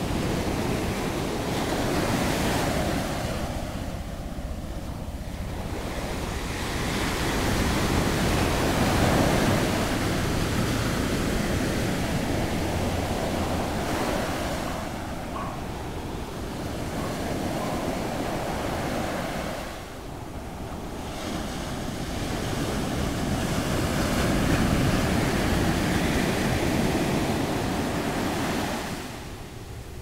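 Ocean surf breaking and washing up onto a sandy beach, a steady rush that swells and eases as the waves come in, loudest about a third of the way in and again near the end.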